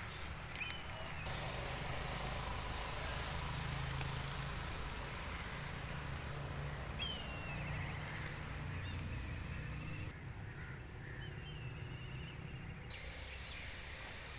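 Outdoor ambience: a steady low rumble with a few short, falling bird calls, near the start, about seven seconds in and again about eleven seconds in.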